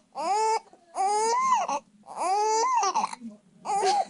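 Infant crying: four cries in a row, each rising then falling in pitch, the last one shorter. The baby is upset by the hiccups.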